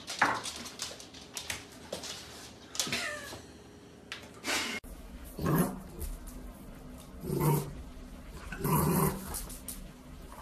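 Bulldog puppy giving a few short, gruff barks, about a second and a half apart, at its own reflection in a mirror. A few sharp clicks and knocks come before them.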